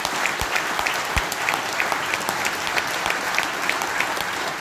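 Audience applauding in a hall, dense and steady, with one nearby clapper standing out at about three claps a second.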